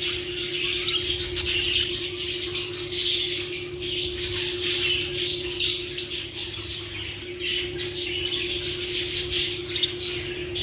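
Lovebirds chattering: a continuous stream of rapid high chirps and squawks. A steady low hum runs underneath.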